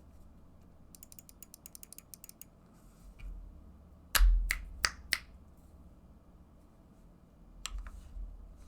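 Scattered keystrokes on a GMMK Compact mechanical keyboard with lubed Akko CS Matcha Green linear switches: a quick run of light clicks, then three sharp, deeper clacks about four to five seconds in, and a few more presses near the end.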